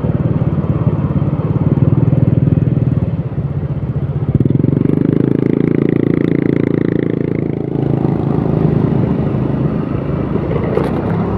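Motor scooter engine running steadily on the move, with a fuller, louder stretch from about four to eight seconds in.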